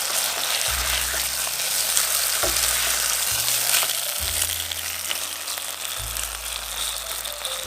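Beef steak frying in a hot pan, a steady sizzle.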